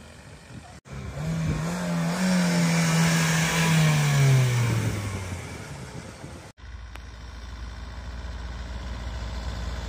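A Ford Fiesta hatchback driving slowly past close by, its engine note dropping in pitch as it goes away. After a cut about two-thirds through, a low steady engine rumble of another car coming closer, slowly getting louder.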